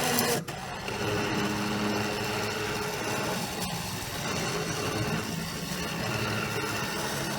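ATV engine idling steadily, with a brief louder burst right at the start.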